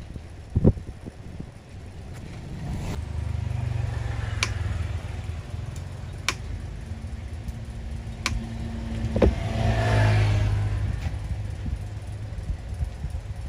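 Road vehicle engines passing, the low rumble swelling twice, the second time with a rising engine note. A few sharp clicks are scattered through it.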